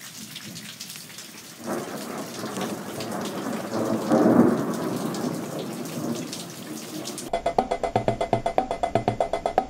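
Rain falling steadily under a rumble of thunder that swells to its loudest about four seconds in, then eases. About seven seconds in, the storm cuts off and music with a quick, steady beat begins.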